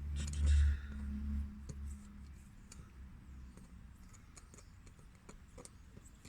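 Faint scattered clicks and taps of hand tools being worked at the tyre. A low rumble fades away over the first two seconds.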